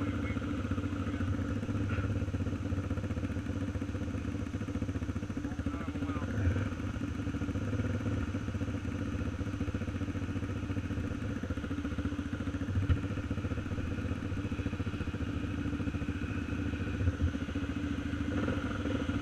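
Dirt bike engines idling steadily, with no revving, and a few brief thumps.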